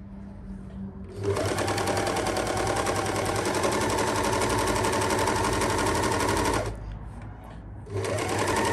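Janome 8002D overlocker running at speed, sewing a four-thread overlock stitch that gathers elastic onto light cotton. It starts about a second in, runs for about five seconds, stops, and starts again near the end.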